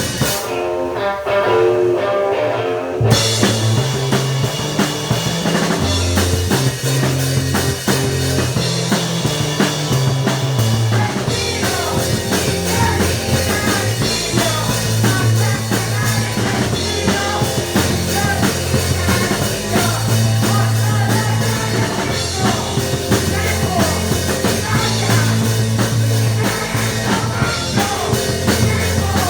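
Rock band playing live with guitar, bass and drums. It starts sparse, and the full band with a heavy bass line comes in about three seconds in.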